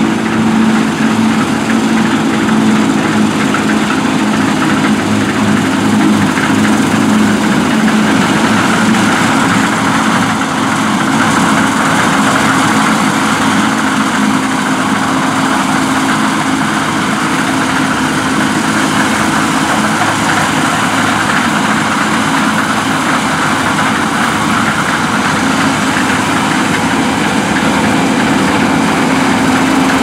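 New Holland CR7.90 combine harvester's diesel engine and threshing machinery running steadily while it cuts barley: a constant low hum with a broad whirr above it, holding even throughout.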